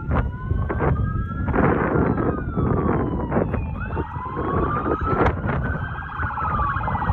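Several sheriff's patrol car sirens wailing together, their pitches slowly rising and falling and crossing, over low vehicle rumble, with short sharp honks breaking in every second or so.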